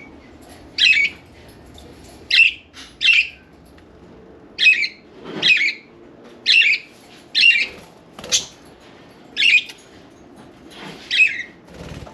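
Budgerigars calling: about ten short, harsh squawks, roughly one a second.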